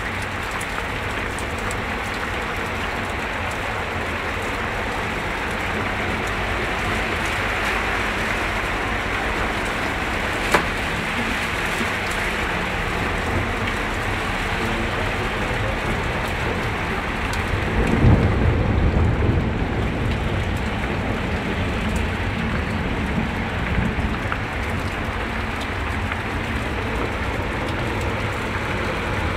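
Steady hiss of heavy rain and rushing floodwater, with cars driving through the deep water on the road. About ten seconds in there is one sharp click, and a little past the middle a louder, low rushing rumble swells for about two seconds.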